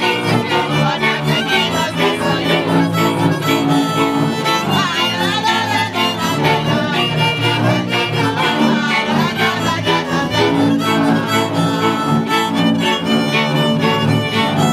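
Two violins and a bowed double bass playing a folk tune together, the bass marking a steady beat under the fiddles' melody.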